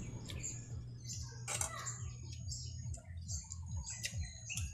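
Birds chirping faintly in the background, with a few light clicks of spoons and plates at the table.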